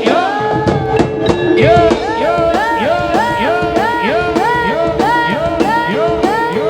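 Javanese jaranan sentherewe music: a repeated melody gliding up and down about twice a second, over a steady drum beat and a held gamelan tone.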